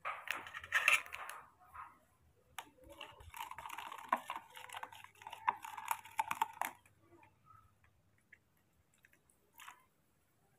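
Metal spoon stirring and scraping inside a plastic cup, a rapid clicking rattle lasting about four seconds, after a shorter burst of rustling and clicking at the start.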